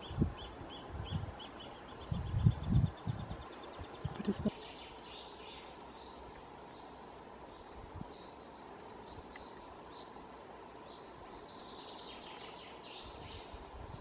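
Eurasian three-toed woodpecker nestlings begging from inside the nest hole: a rapid series of high squeaky calls that fades out about four seconds in, over low thumps. After that only a faint hiss with a few distant birdsong notes.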